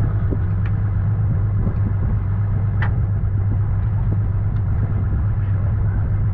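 Boat engine running steadily with a low, even hum, with a few faint knocks over it.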